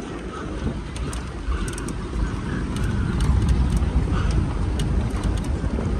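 Jeep driving over a rough dirt track: a steady low rumble of engine and wheels with many short, sharp clicks and rattles, growing a little louder about halfway through.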